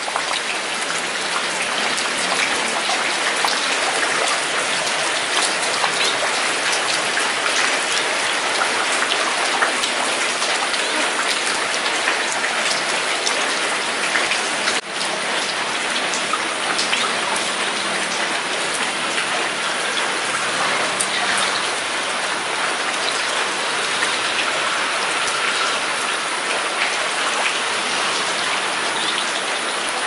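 Steady rain: an even hiss with a fine patter of drops, dipping briefly about halfway through.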